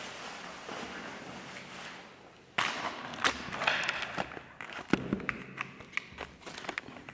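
Crumpled foil wrapping being handled and opened: soft rustling at first, then from about two and a half seconds in louder crinkling and crackling with many sharp clicks and taps.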